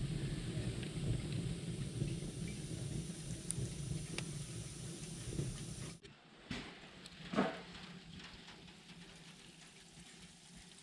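Wood fire burning in a small cast-iron wood stove with its door open: a steady low rush of flame with scattered crackles and pops. About six seconds in it cuts off abruptly to quiet room tone with a couple of faint knocks.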